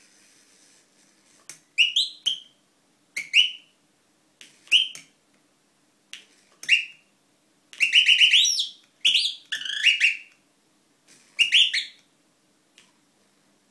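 Brush-built bird automaton chirping: about eight bursts of short, rising, whistle-like chirps, with a fast run of chirps around the middle. Short clicks come just before several bursts, over a faint steady hum.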